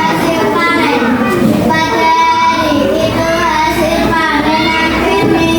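A voice singing a melody with long held notes.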